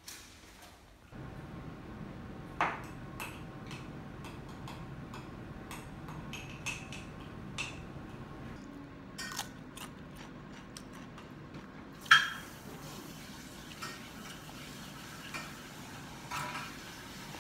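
Scattered clinks and taps of dishes and cutlery over a steady room hum, with two louder ringing clinks, the loudest about twelve seconds in.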